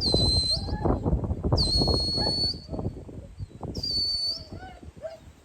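Three shrill whistle blasts of a sheepdog handler's command whistle, each a quick swoop settling into a steady high note, the middle one the longest. A busy jumble of lower sounds runs underneath.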